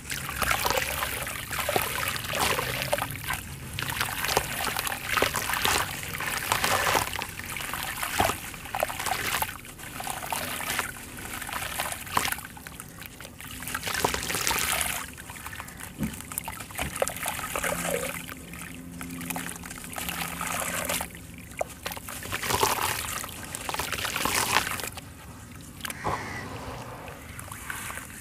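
Dry sand-cement chunk crumbling between the hands, its gritty sand pouring and trickling into a tub of muddy water, with splashing and sloshing as the hands work the wet mud, in irregular bursts with short pauses.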